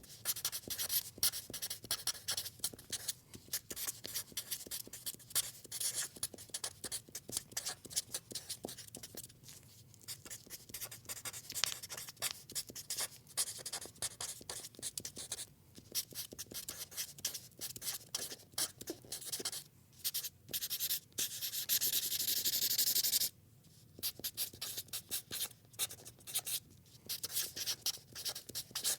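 Sharpie felt-tip marker writing on paper: quick squeaky strokes of the felt nib dragging across the sheet, broken by short pauses, with one long continuous stroke near the end.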